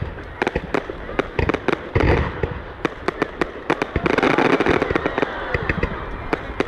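Fireworks going off: a rapid run of sharp pops, with denser crackling bursts about two seconds in and again from about four seconds in.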